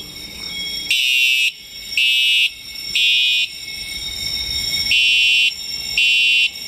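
Fire alarm sounder beeping in the three-pulse temporal evacuation pattern, with groups of half-second high-pitched beeps about a second apart and a longer pause between groups, over a faint steady high tone. It is the first-stage fire alarm of an FM200 suppression system wired to a Simplex 4007 fire alarm control panel, sounding under test.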